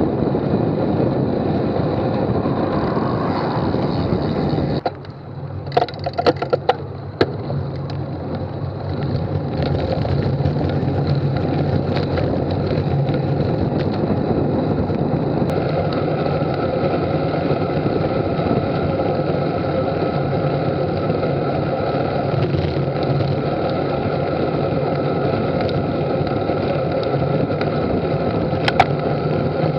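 Steady wind rush and tyre noise from a 2005 Colnago Dream HD Plus road bike being ridden. About five seconds in the noise drops briefly and a quick cluster of sharp clicks sounds before the steady riding noise returns.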